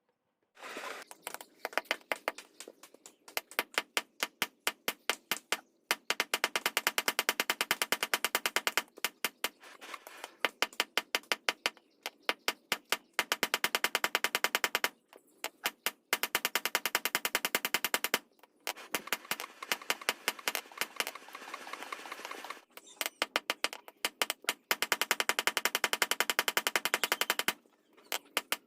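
Hammer blows on steel at an anvil, forging a blade, fast and even at about four to five strikes a second, each with a ringing metallic tone. The hammering comes in runs of a few seconds with brief pauses between them.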